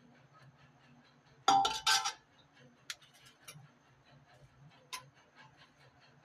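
Metal kitchen utensils clattering against cookware: a loud ringing clatter about a second and a half in, then a few single clinks over faint, even ticking.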